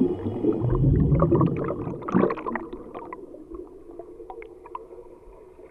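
Water gurgling and splashing with a low rumble, dying away over the last few seconds.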